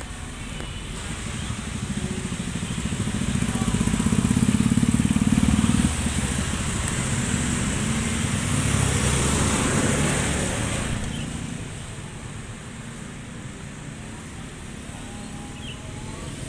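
Motor vehicles passing close by on a street. The engine noise swells to a peak about five seconds in, drops suddenly near six seconds, and a second pass fades out after about eleven seconds, leaving lower traffic noise.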